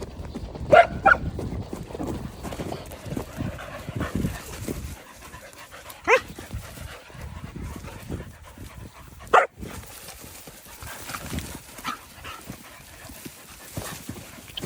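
Dogs barking in a few sharp single barks, about a second in, around six seconds and around nine and a half seconds, with panting in between.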